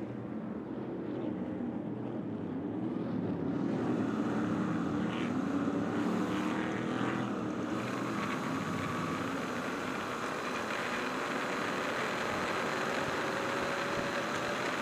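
Stadium Super Truck's V8 engine heard from inside the cab, running hard at racing speed with its pitch rising and falling. A steady hiss of spray from the rain-soaked track fills in about four seconds in.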